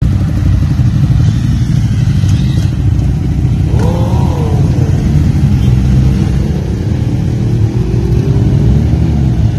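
Several large sport motorcycles rumbling as they pull away in a group. About four seconds in there is a quick throttle blip that rises and falls, and near the end one engine's note climbs as it accelerates off.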